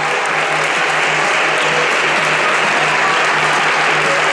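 Crowd applauding steadily, a dense, unbroken clapping.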